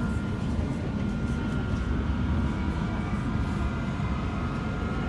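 Cabin noise inside a Queensland Rail SMU 220 electric suburban train: a steady low rumble with a faint steady high whine above it.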